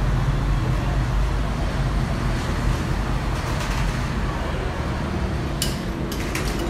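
1:18-scale battery-powered RC off-road toy car running across a tiled floor, its motor and tyres making a steady rumbling drone. A few sharp knocks come near the end.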